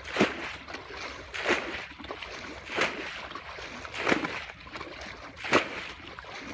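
Muddy water bailed out of a pond with a bucket: each bucketful is scooped and flung out in a splash, about once every second and a quarter, five times in a row.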